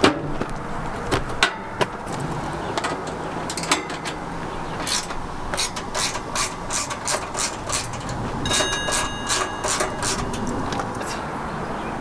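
Footsteps crunching on a gravelly driveway in an even run of several steps a second, with a brief faint whistle-like tone partway through.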